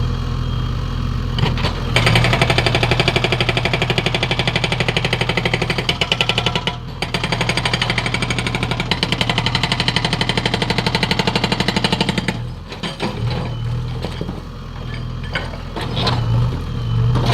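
Hydraulic breaker on a JCB 3DX backhoe loader hammering rapidly over the steady run of the machine's engine, in two long runs with a short break in between. The hammering stops about twelve seconds in, leaving the engine running with a few knocks.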